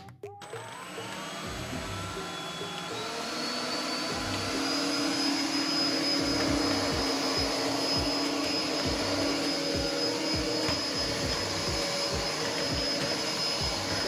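Philips SpeedPro Max cordless stick vacuum switching on, its motor whine rising in pitch over the first few seconds and then running steady and high.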